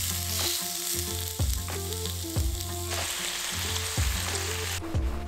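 Chicken breast sizzling in a ridged grill pan, the frying hiss cutting off sharply near the end. A music track with a deep, steady beat plays under it.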